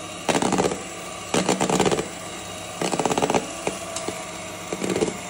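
Electric hand mixer running, its beaters whipping cream with chocolate in a plastic bowl; the steady motor hum rises four times into louder, rattly stretches of under a second as the beaters are worked through the bowl.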